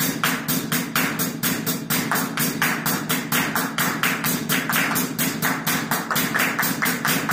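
Percussion ensemble playing a steady, rapid pattern of sharp taps or claps, about six a second, evenly spaced throughout.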